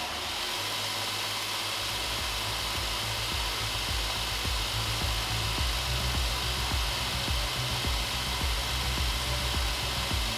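Bench grinder converted to a 2x42 belt grinder, its motor driving the sanding belt with nothing against it. It starts suddenly right at the beginning, then runs steadily as an even whir over a low hum.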